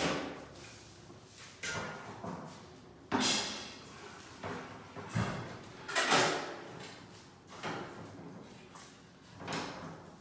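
Cabinets being installed: a series of irregular knocks and bangs of wooden cabinet parts being handled and set in place, about seven in all, each with a short echo off the bare room.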